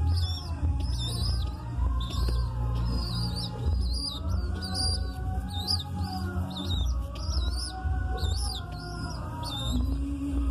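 Short high bird chirps, repeating about twice a second, over background music.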